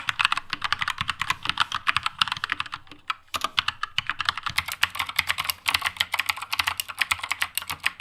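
Fast, continuous typing on mechanical keyboards fitted with blue and red switches, a switch sound test; a short break about three seconds in divides it into two stretches.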